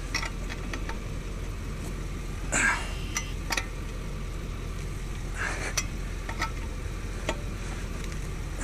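Scattered metal clinks and two short scraping sounds from tire-change tools and wheel hardware being handled, over a steady low vehicle rumble.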